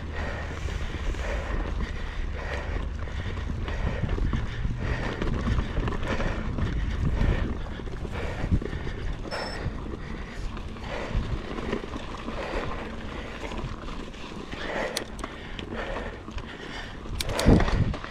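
Wind buffeting the microphone during a mountain-bike climb, a low rumble heaviest in the first half, with a short, loud rattle near the end.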